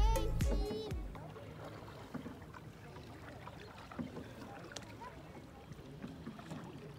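Background music dies away in the first second. Then there is faint water lapping and trickling against a canoe hull as it glides over a shallow, stony stretch of river, with a few small splashes and knocks.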